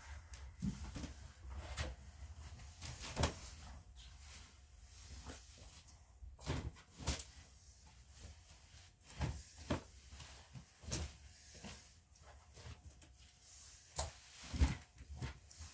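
Bed linen being handled while the bed is made: sheets pulled, smoothed and tucked, with irregular fabric rustles and scattered soft thumps and knocks, the loudest about three seconds in and near the end.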